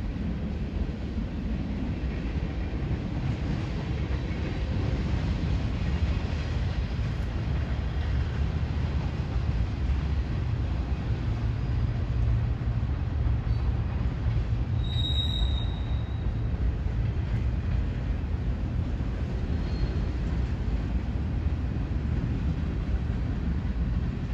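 Freight train cars rolling past on the rails: a steady low rumble, with a brief high-pitched squeal about two thirds of the way through.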